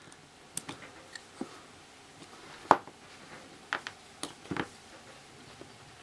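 Irregular small metal clicks and taps from a brass Kwikset lock cylinder being handled and worked apart with a thin metal tool. One sharper click comes a little before the middle.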